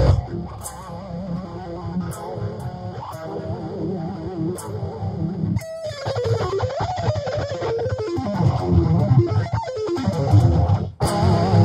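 Electric guitar played in fast shred-style runs of rapid notes, with sweeping rises and falls in pitch about halfway through and a brief break near the end.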